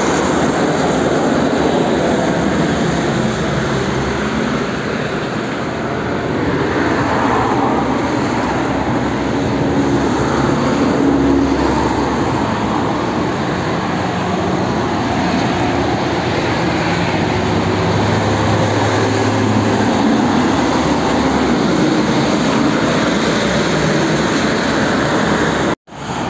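Heavy traffic on a multi-lane road: tyres hissing on the wet, slushy surface and the engines of passing cars and trucks, as a steady loud noise. A deeper engine hum swells for a couple of seconds about two-thirds through.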